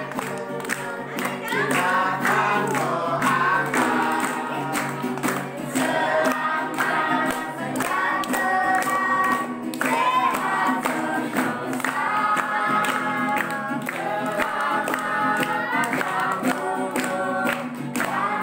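Several voices singing a song together over music with a steady beat, with hands clapping along.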